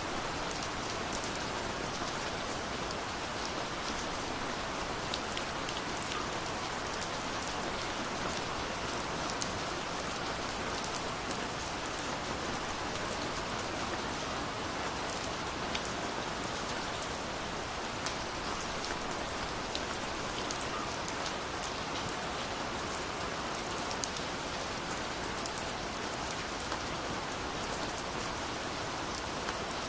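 Steady rain, with many individual drops ticking against a surface over an even hiss.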